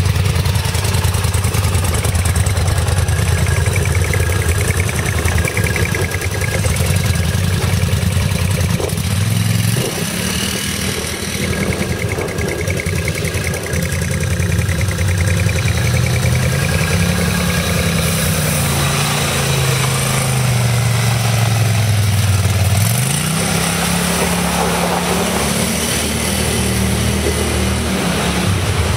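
Twin-cylinder ATV engines idling, with one revving up and down several times through the middle. Near the end a quad splashes through shallow creek water.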